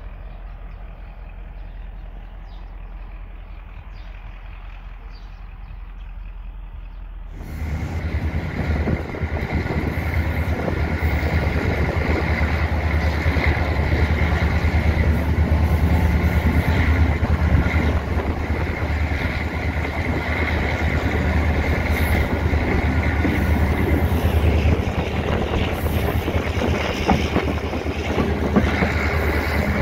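EMD GL18B diesel locomotive under way, heard close up from alongside its cab: a loud steady engine drone mixed with running noise. The first several seconds are a quieter trackside stretch with a distant low rumble, before a sudden switch to the close engine sound.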